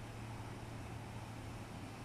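Steady low hum under an even hiss: background room noise with no distinct events.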